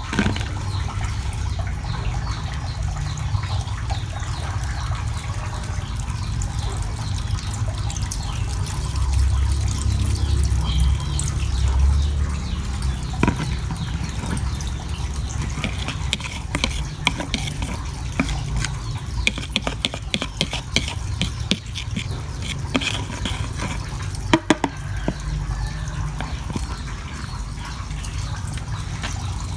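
Water running steadily in the eel tanks, with scattered light clicks and taps of a metal spoon against a plastic feed bowl.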